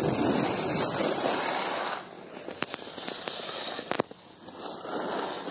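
Wind rushing over the microphone and skis scraping on snow during a downhill run, dropping off about two seconds in as the skier stops. A few sharp clicks follow, the loudest about four seconds in.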